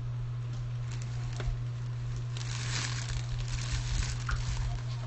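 Clear plastic wrapping crinkling as plastic cat-ear headphones are handled, with scattered light clicks and the crinkling densest about two and a half to three and a half seconds in. A steady low hum runs underneath.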